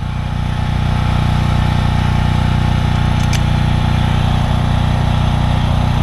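An engine idling steadily, with a faint click about three seconds in.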